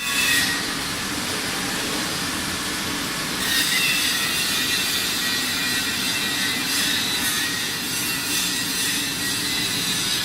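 A 1-ton slurry ice machine running: a steady mechanical hum and hiss with faint high whining tones. The hiss grows brighter and a little louder about three and a half seconds in.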